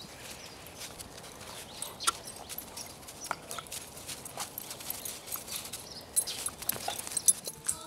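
Paws of a Lab mix and a coonhound puppy crunching and scuffling in snow as the two dogs play, a run of irregular soft crunches and clicks with a few sharper ones near the end.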